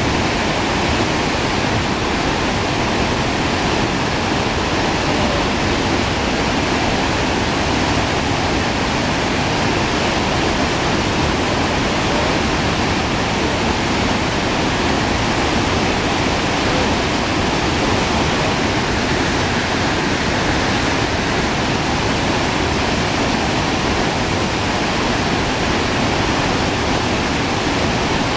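Loud, steady rush of a waterfall, with whitewater pouring over rock ledges.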